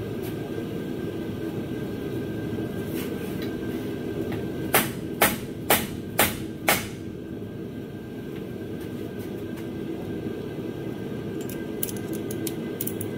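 Five hammer blows on the end of a 2002 Lincoln Town Car's rear axle shaft, about two a second, tapping the axle inward to free its C-clip in the differential. A steady low hum runs underneath, with a few light clicks near the end.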